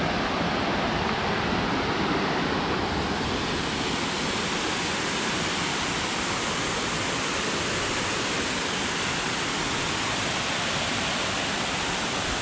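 Waterfall running: a steady, even rush of falling water, turning a little brighter and hissier about three seconds in.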